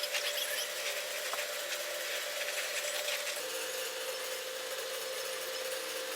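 Small power tool running with a steady whine over a rasping hiss, its pitch dropping a little about three and a half seconds in as it works on a collar seized onto an old shock absorber.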